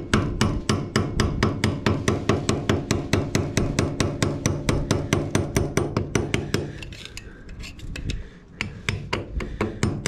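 Rapid metal-on-metal tapping, about five strokes a second with a ringing tone, as a screwdriver held against the Woodruff key on an Alpha 110 cc engine's crankshaft is struck to drive the key out. After about seven seconds the taps become slower and sparser.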